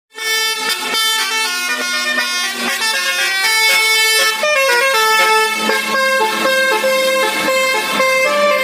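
Bus 'telolet basuri' multi-tone air horn playing a tune, its loud notes stepping from pitch to pitch every few tenths of a second, with a falling run of notes near the middle.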